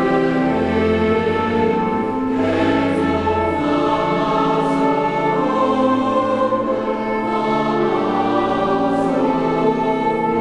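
A choir singing slow, long-held chords in several parts, with sung words audible now and then, at a rehearsal.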